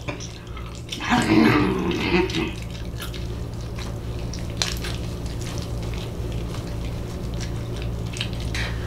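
Close-miked wet chewing and lip smacking on rotisserie chicken, with soft mouth clicks. A short muffled vocal sound comes about a second in. A steady low hum runs underneath.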